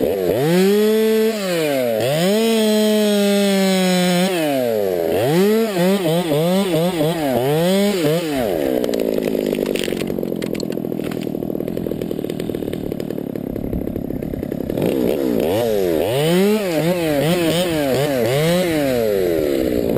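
Stihl 200T top-handle two-stroke chainsaw, revved up and down repeatedly while cutting spruce. It holds a steadier pitch for several seconds in the middle, then revs up and down again near the end.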